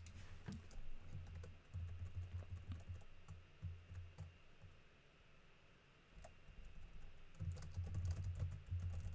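Typing on a computer keyboard: runs of quick keystrokes with dull thuds, a pause of a few seconds in the middle, then another fast run near the end.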